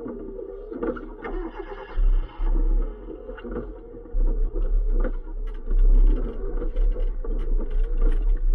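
Hyundai Excel rally car's engine running, with a heavy low rumble that comes in surges from about two seconds in.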